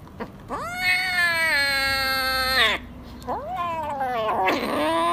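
Kitten meowing while being fed from a syringe: one long, drawn-out meow, then a shorter one, then another starting near the end.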